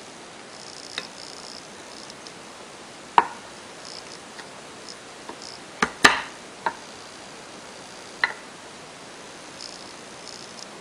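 Glass reagent bottles being handled on a lab bench: a few short, sharp clinks and knocks as a bottle is set down and capped, the loudest about three seconds in and around six seconds in, over a steady hiss.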